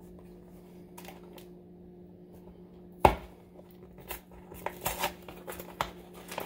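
A sharp knock about three seconds in as a small cardboard instant-pudding box is set on the counter, then light scraping, clicking and tearing of cardboard as its top flap is pried open.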